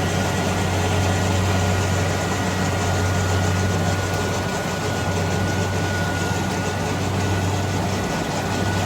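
Rice combine harvester running steadily while harvesting: a constant low engine hum under a dense machinery clatter, with a thin steady whine.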